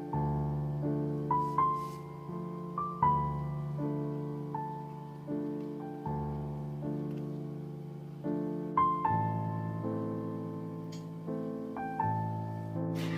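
Solo piano background music: a slow, gentle melody over sustained chords, each note struck and fading.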